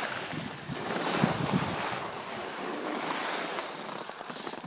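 Wind rushing over a phone's microphone while moving on a ski slope, swelling and easing a few times.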